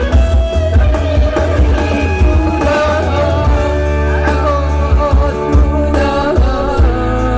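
Live amplified keyboard band music with a steady bass beat, and an older man singing a melody into a microphone.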